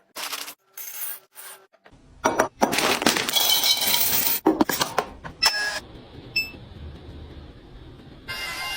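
Hard containers being handled and set down while restocking a fridge: separate clinks and knocks, then a dense run of rattling, glassy clatter about two and a half seconds in, with more clinks near the end.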